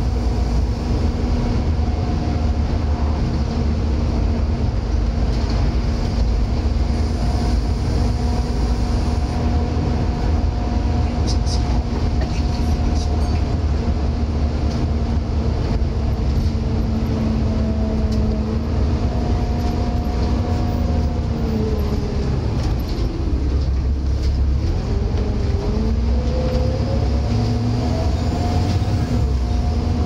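On-board sound of a Volvo B7TL double-decker bus on the move: a heavy rumble from its six-cylinder diesel and ZF automatic gearbox, with a steady whine from the cooling fan, the so-called 'Hoover' sound. About two-thirds of the way through the whine drops in pitch, then climbs back up and levels off again.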